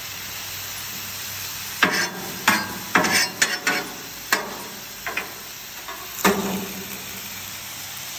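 Chicken pieces sizzling steadily on a hot Blackstone steel flat-top griddle, with a metal spatula clanking and scraping against the plate about a dozen times, in quick strikes from about two seconds in until past the six-second mark.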